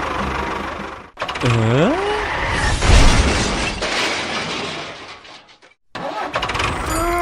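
A steady engine running cuts off abruptly. Then come a short rising pitched cry, a loud low thump about three seconds in, and another brief pitched cry that rises and falls near the end.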